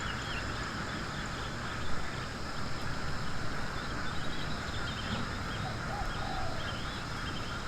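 Outdoor ambience: scattered faint bird chirps over a steady background hiss with a thin, constant high drone.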